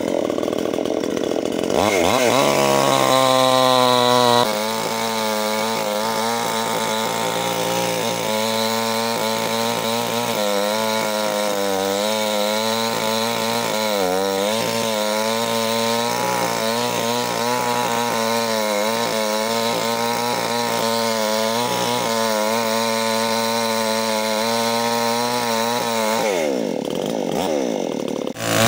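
Extra Power two-stroke petrol chainsaw revving up about two seconds in, then cutting through a thick log. The engine pitch sags and wavers under load for over twenty seconds, then drops toward idle near the end as the saw comes out of the cut and is revved again.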